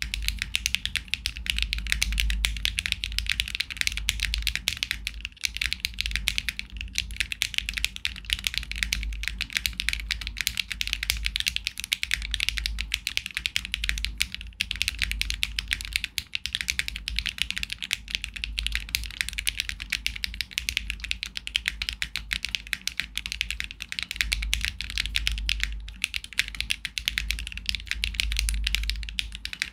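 Fast continuous typing on a Luminkey65 mechanical keyboard with an aluminium plate and no foam, fitted with HMX Hyacinth V2U switches, C3 Equalz V3 stabilizers and OTC Modo Light keycaps: a dense, unbroken run of key clicks.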